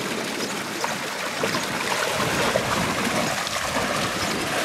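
Pool water sloshing and splashing steadily as a horse swims through it, its legs churning the water, with many small splashes.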